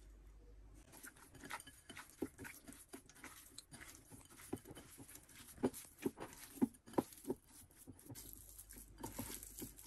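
Bare hand squeezing and turning raw chicken pieces in dry spices in a glass bowl to marinate them: soft, irregular squelches and slaps, starting about a second in and loudest a little past the middle.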